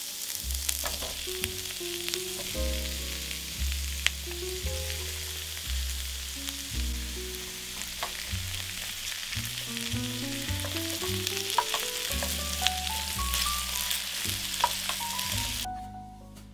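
Sliced onions and carrots sizzling in oil in a frying pan, with a few sharp clicks of a spatula stirring. The sizzle stops about a second before the end. Background music with a bass line plays throughout.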